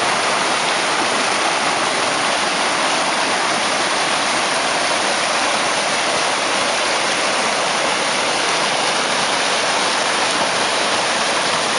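A normally small mountain stream in flood: fast, muddy water rushing and churning through brush and around tree trunks, a steady loud rush.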